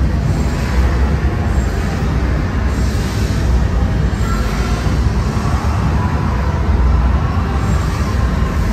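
Roller-coaster soundtrack of a 3D simulator ride: a loud, steady, heavy low rumble of the coaster running on its track, with hissing swells now and then.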